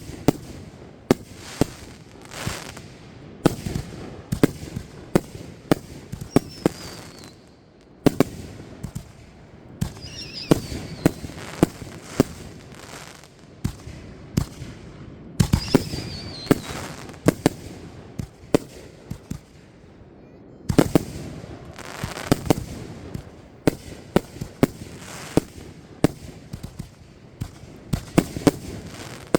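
Fireworks going off in a steady run of sharp bangs and booms, at times several a second with brief lulls between volleys. A few short whistles falling in pitch come from shells as they go up.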